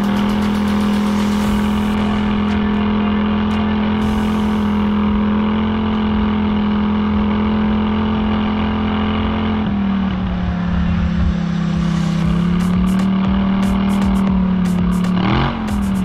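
ATV engine running at a steady speed under way. The revs drop a little about ten seconds in, and near the end the throttle is briefly eased off and opened again.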